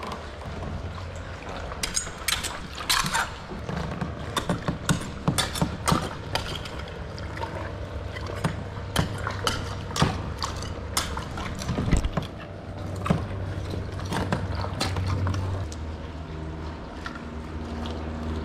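Barnacles being knocked and scraped off a concrete bridge piling by hand at the waterline: a run of sharp cracks and clicks with some water sounds, thickest in the first half and thinning out later, over a steady low hum.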